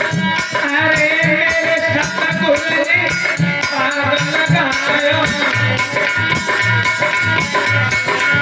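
Krishna bhajan music: a steady beat of drum strokes and sharp rattling percussion under a wavering melodic line.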